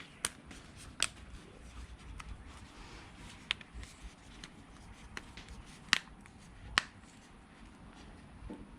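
Sharp clicks and taps of a smartphone's new glass back being set down and pressed onto its adhesive to seal it, with light rubbing between. The two loudest clicks come about six and seven seconds in.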